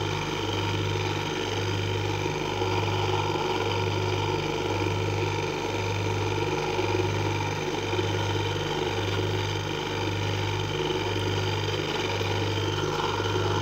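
Washing-machine wash motor, a single-phase capacitor-run motor on a test bench, running steadily on the timer: a low hum that throbs about once a second over a steady whirr.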